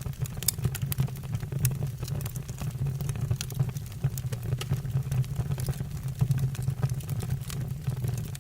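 Wood fire burning in a fireplace: logs crackling with frequent irregular sharp pops over a steady low roar of flames.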